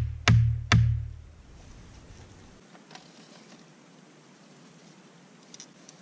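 Two heavy wooden knocks about half a second apart in the first second: a hatchet pounding the top of an upright wooden stake into the ground. After that only a faint background hiss with a couple of small ticks.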